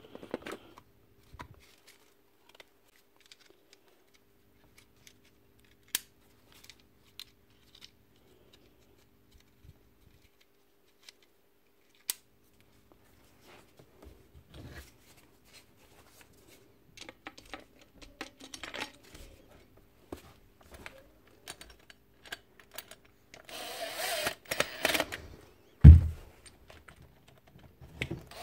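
Scattered light clicks and clacks of metal parts being handled and fitted together as the armature and gear head of a Makita angle grinder go back into its motor housing. Near the end a cordless drill driver runs briefly, then comes a single loud knock.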